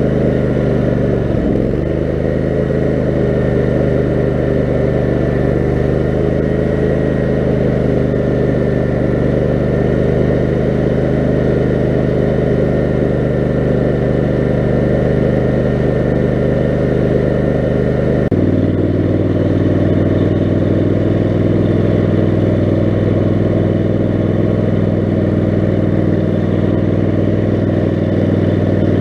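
Kohler 18 HP Command engine of an off-road lawn mower running steadily. About two-thirds of the way through, its note changes abruptly to a different steady pitch.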